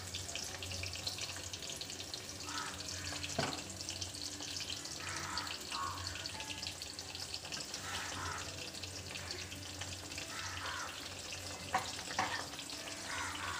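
Marinated mushroom pieces deep-frying in a kadai of hot oil: a steady crackling sizzle of bubbling oil, with a few light knocks from stirring.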